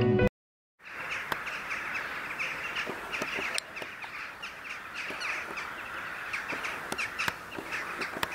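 A large flock of birds calling together: a dense chatter of many overlapping short calls that starts about a second in, after a brief silence.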